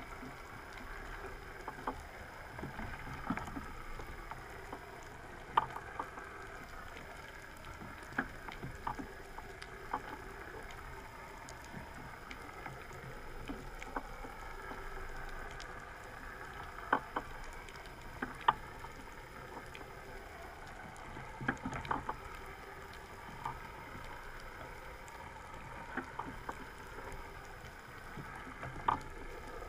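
Underwater ambience picked up by a camera in its housing: a steady wash of water noise with scattered, irregular sharp clicks.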